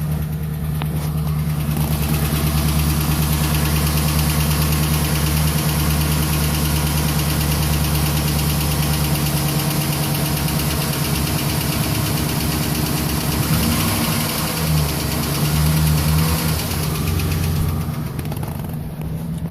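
A 2011 Chevrolet Silverado's 5.3-litre V8 idles just after a hard start, with a fast clicking over the idle. The owner doesn't know the cause.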